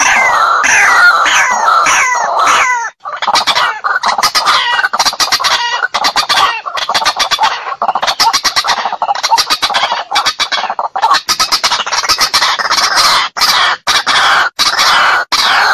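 White-breasted waterhen giving its loud territorial 'ruak-ruak' calls, the challenge call that trappers play to lure rival birds into a fight. It opens with repeated falling notes, then after a short break about three seconds in turns into fast stuttering runs broken by brief pauses.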